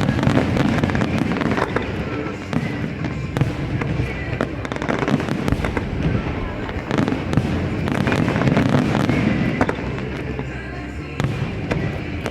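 Aerial fireworks bursting one after another in a dense, continuous barrage of bangs and crackles.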